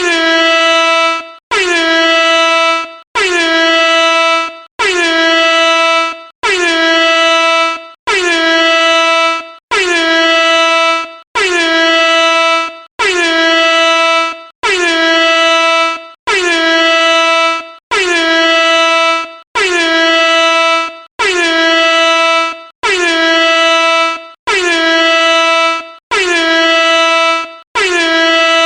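Air horn sounding in repeated loud blasts, about one every second and a half, each blast lasting a little over a second with a brief gap before the next. Each blast has a slight dip in pitch as it begins, then holds one steady note.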